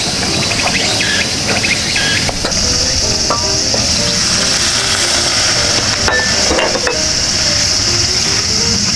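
Spice curry cooking in a pot on a camp gas stove: a wooden spoon stirring, then a steady sizzle that grows stronger about two and a half seconds in as water is poured into the hot pot. Soft melodic background music plays along.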